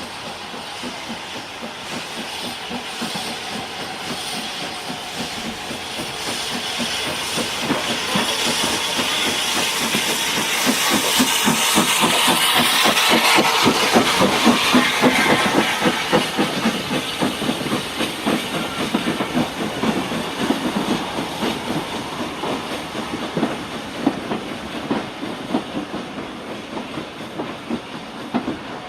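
A train passing: a rumble and fast clatter of wheels over the rails with hiss, building to a peak about halfway through and then fading away.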